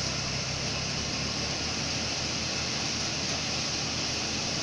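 Seven-fan 'missile type' paddy thresher running under load, blowing chopped straw out through its long delivery chute. It makes a steady machine drone under a constant hiss of rushing air and straw.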